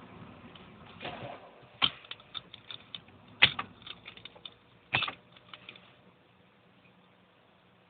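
A run of irregular sharp clicks, about a dozen, the loudest two about a second and a half apart, as the ignition key of a 1998 Mercedes CLK 320 is worked. The engine does not crank, the car's intermittent no-crank fault, which was later cured with a stronger battery.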